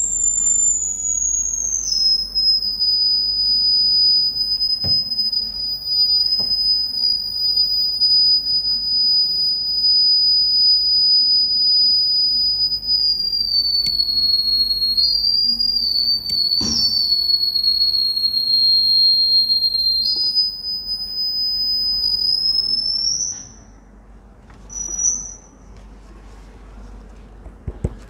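Public-address feedback from the lectern microphone: a loud, continuous high-pitched whistle. It slides down in pitch at the start, wavers and steps in pitch, then rises and cuts off a few seconds before the end, leaving a faint hum. A couple of soft knocks sound underneath.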